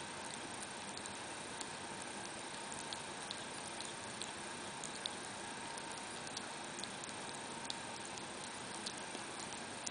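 Small wet clicks and smacks, irregular at about one or two a second, from a sick ferret licking and lapping liquid food from a syringe tip, over a faint steady hiss.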